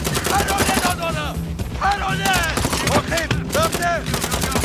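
Rapid automatic rifle fire, many shots close together in a sustained exchange, with music playing under it.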